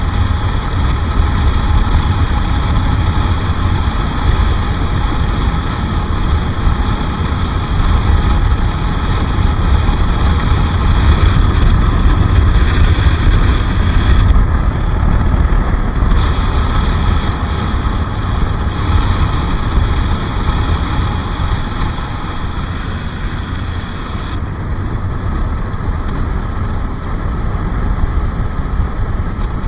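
Bajaj Pulsar RS 200's single-cylinder engine running under way, with heavy wind rumble on the microphone. The engine note shifts with the throttle and drops back near the end.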